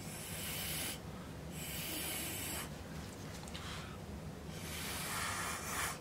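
Soft, breathy hissing in four bursts of about a second each, with short gaps between them.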